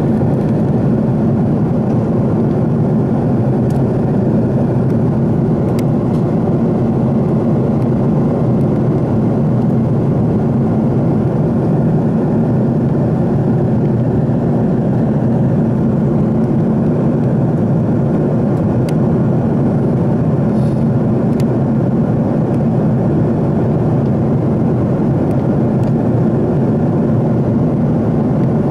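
Airliner cabin noise in flight: a loud, steady rush of engine and air noise that stays even throughout, with a few faint small clicks.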